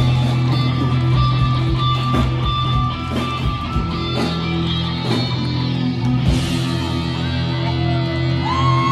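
Live band playing amplified dance music: electric guitar, keyboard, bass and drums at a steady beat. A woman's singing voice comes in near the end.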